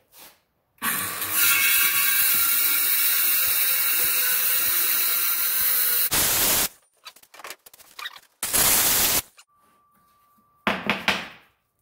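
Ryobi circular saw cutting a long straight cut through a white board for about five seconds, then cutting off sharply. A few shorter bursts of noise follow.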